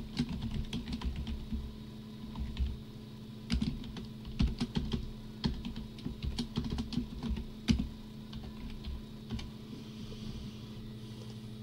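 Computer keyboard being typed on, keystrokes clicking in quick irregular bursts that stop near the end.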